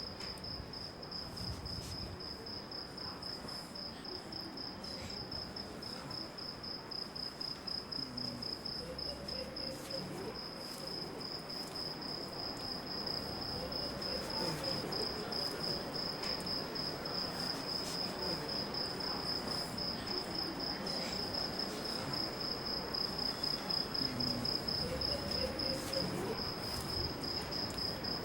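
Crickets chirping in a steady, rapid, even pulsing high tone, over a faint low murmur of background sound.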